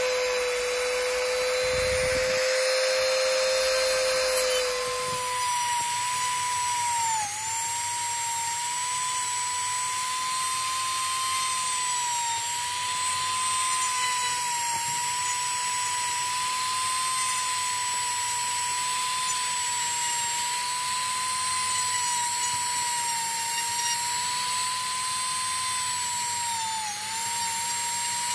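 Royce handheld rotary tool running with a ridged wheel bit, grinding out the speaker recess in a motorcycle helmet's speaker housing: a steady motor whine that jumps to about twice the pitch some five seconds in. The pitch dips briefly a few times as the bit bites into the material.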